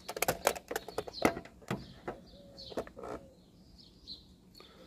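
A quick run of sharp clicks and clacks from handling a small automotive relay with clip leads and multimeter probes, over about the first two seconds. Birds chirp in the background after that.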